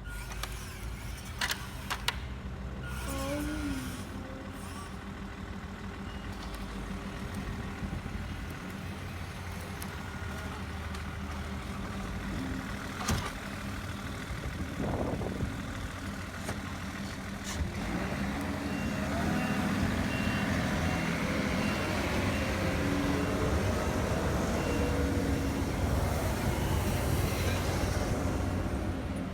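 Small electric drive of an RC-converted Bruder toy tandem vibration roller running, a steady hum with gear noise that grows louder about two-thirds of the way in. An evenly repeated beeping sounds for several seconds at the same time.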